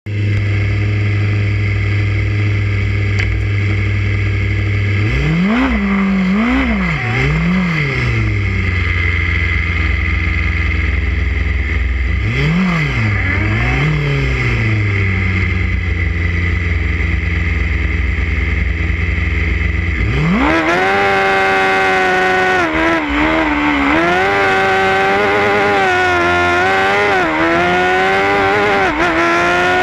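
Formula SAE race car's engine heard from on board, idling steadily with three quick throttle blips and later two more, then revving up as the car pulls away about twenty seconds in and running at high revs, its pitch rising and dipping with the throttle.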